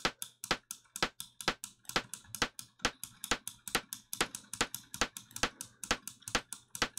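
FM-synthesized rimshot-style percussion hit from Ableton's Operator synth, playing on a loop as a regular run of short, sharp, clicky hits, about four a second, some louder than others.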